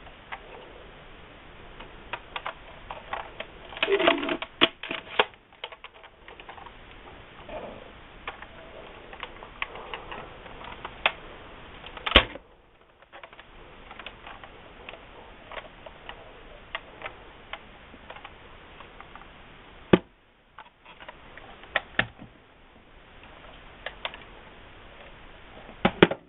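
Plastic clicks and clacks from a modified toy pump-action shotgun being handled and worked, with a busy run of clatter about four seconds in. Several loud single snaps stand out, near the middle and near the end.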